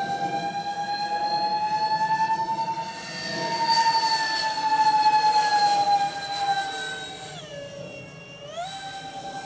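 Electric ducted fan of a radio-controlled Su-35 model jet whining in flight, a high steady whine that slowly rises and falls in pitch. About seven and a half seconds in the whine drops sharply and quietens, then climbs back up a second later.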